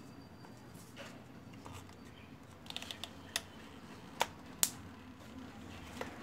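Sharp clicks and taps from handling a hot glue gun and cardboard pieces while gluing: a quick cluster about three seconds in, then a few single clicks less than a second apart. A low steady hum lies under them.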